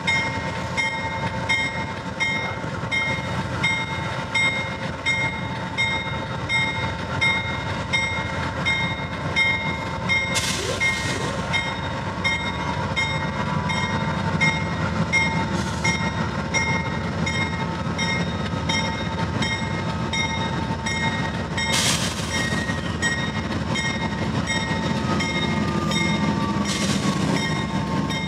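Amtrak GE Genesis diesel locomotives pulling a passenger train slowly out of a station: steady engine rumble under a bell ringing about twice a second, with four short hisses of air.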